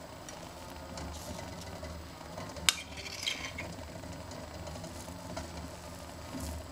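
A metal spoon clinks sharply against a glass cup about three seconds in, then scrapes and clinks inside it as it scoops up oat batter. Lighter spoon scrapes and taps in a frying pan come before and after, over a low steady hum.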